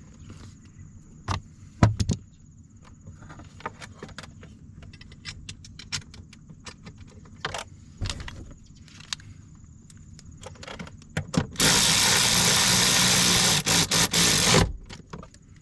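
Metal clicks and knocks of a bolt and the battery bracket being handled, then a cordless power tool runs for about three seconds, driving a bracket bolt in, with a couple of short stops near the end.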